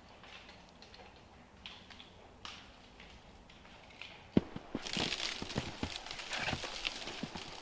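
Boots crunching steadily through deep snow as a person walks, starting a little over halfway in, after a quiet stretch with a few faint ticks and a sharp click.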